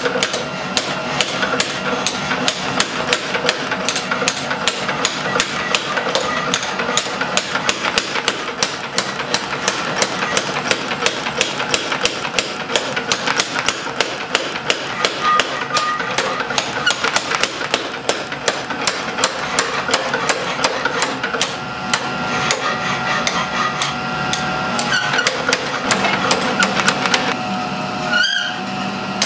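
Steel being hammered in rapid, even blows, about four a second, each strike ringing. This is blacksmith forging of hot metal, with a brief break near the end.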